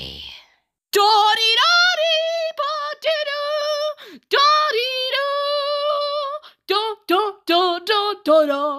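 A high-pitched voice singing, holding a few long notes with slides between them, then breaking into short clipped notes at about three a second in the last couple of seconds.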